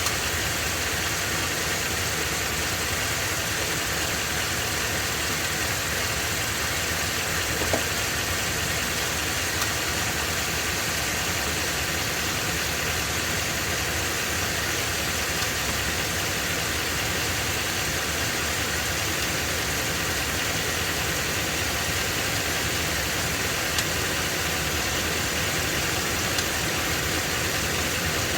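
Ford 7.3-litre Godzilla gasoline V8 in an F-250 running steadily while it makes an abnormal internal engine noise, a fault the dealer did not cure and that needs a new engine.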